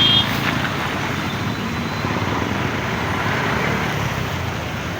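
Steady road traffic noise: vehicle engines running with a continuous rushing hiss of passing traffic.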